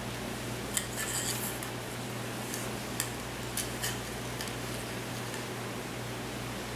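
Light clicks and taps of wooden dowels knocking against each other and the tile floor as a dowel-and-rubber-band tensegrity model is handled, several scattered through the first four seconds, over a steady low hum.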